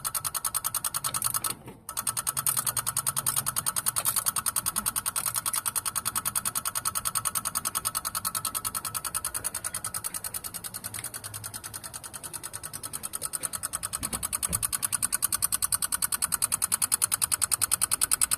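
Rapid, even ticking at several clicks a second from somewhere in the front of a 1988 Chevrolet Caprice with a 305 V8 that cranks but won't start. It dips a little in the middle and grows louder again toward the end. The owner does not know what is making it.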